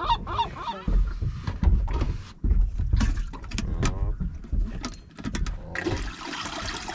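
Knocks and thumps of gear being handled on a boat, with a brief honking call about three and a half seconds in. From about six seconds in, seawater splashes and pours as the fish bucket's water is changed.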